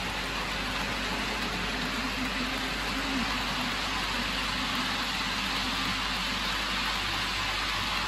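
OO gauge model freight train of Cavalex BBA and Bachmann BAA steel coil wagons rolling past on the track: a steady hiss of small wheels running on rail, with a faint motor hum underneath.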